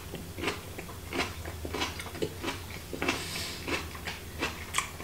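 A person chewing a mouthful of grilled bell pepper close to the microphone, with short chewing sounds about two to three times a second.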